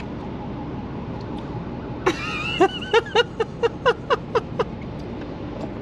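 A woman bursts out laughing about two seconds in, a quick run of short pitched laughs lasting about two and a half seconds, over a steady low background hum.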